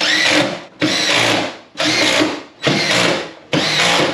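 Power drill driving screws in short trigger pulls: about five runs of under a second each, the motor's whine rising as each one starts, fastening a re-covered golf cart seat back in place.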